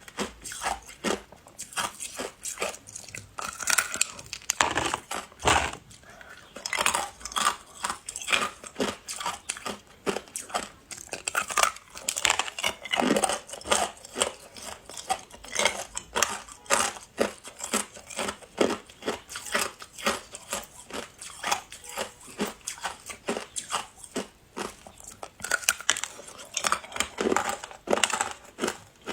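Close-miked crunching of ice being bitten and chewed: a dense, uneven run of sharp crunches, coming in louder clusters now and then.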